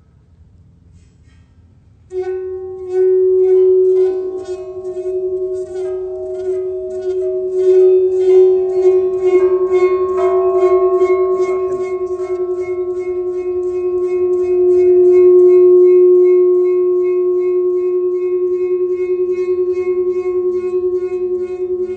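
A loud, sustained ringing musical tone with several overtones begins about two seconds in and holds steady, swelling in the middle, with rapid fine clicking over it during its first several seconds.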